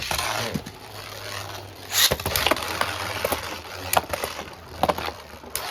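Two Beyblade Burst tops spinning and clashing in a plastic stadium: a steady whirr broken by sharp hits, the loudest about two seconds in and more between four and six seconds.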